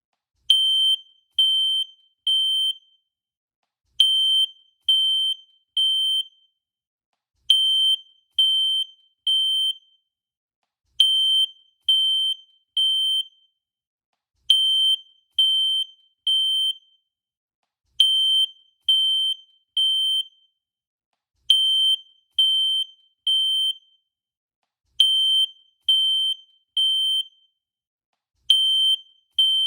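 Fire alarm sounding the temporal-three evacuation signal: three short, high-pitched beeps, a pause, then the next three, repeating steadily.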